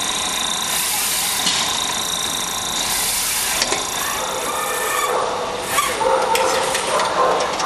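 Semi-automatic backlight module assembly machine running: a steady high whine, several short hisses, and a run of light clicks and clatter in the last couple of seconds.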